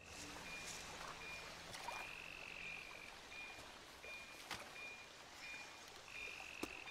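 Handheld tracking device beeping with a short high electronic beep about three times a second, two beeps held longer, over faint jungle stream background with a few light knocks.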